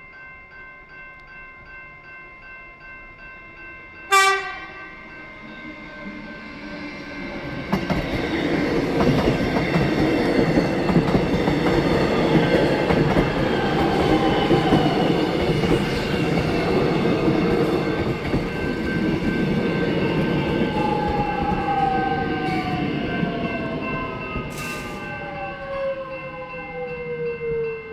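Level crossing warning bells ringing steadily, cut about four seconds in by a short blast of the X'Trapolis electric train's horn. The train then runs through the crossing with a loud rumble and clatter of wheels on rail, and a falling whine near the end as it moves away.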